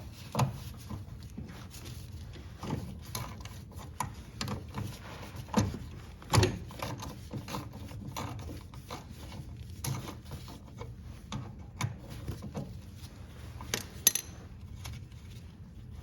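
Scattered metallic clinks and knocks of hand tools working on a lawn tractor's bolts and parts, with a few louder knocks about six seconds in and again near fourteen seconds.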